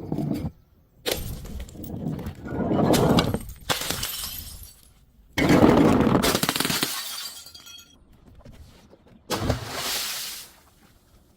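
Glass breaking and crunching in four separate bouts, each starting suddenly with a crackling tail. The longest two run two to three seconds each.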